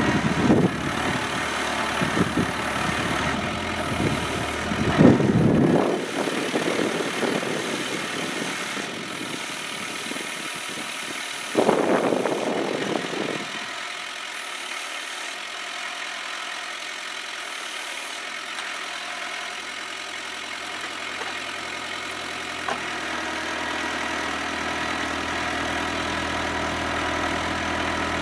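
Kubota B7800 compact tractor's diesel engine running while its PTO-driven post hole auger works the hole, with several loud short surges in the first half. About halfway through it settles to a quieter, steady run.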